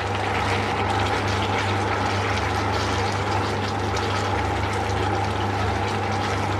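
Thick chili sauce simmering in a frying pan while fried chicken strips are stirred through it with a wooden spatula, over a steady low hum.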